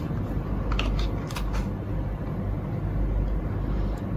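Plastic housings of a Godiag GT106 Plus OBD adapter and a GT327 scanner being handled and plugged together, giving a few light clicks and knocks about a second in, over a steady low background hum.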